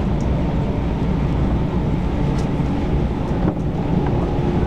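Steady rumble of an E4 series Max double-decker Shinkansen heard from inside the car as it pulls into a station, with faint steady tones and a few light clicks over the running noise.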